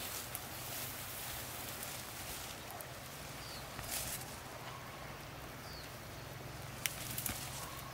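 Footsteps and rustling brush as people walk barefoot along a dirt path through undergrowth, over a steady outdoor hiss. Two short high chirps come in midway, and a few sharp clicks near the end.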